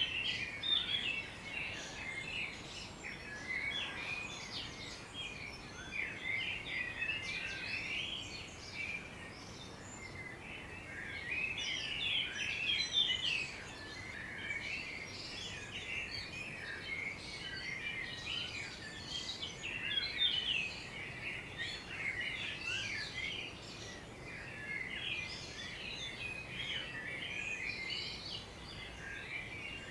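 A morning chorus of several garden birds chirping and singing at once, with dense, overlapping high chirps and trills that never pause.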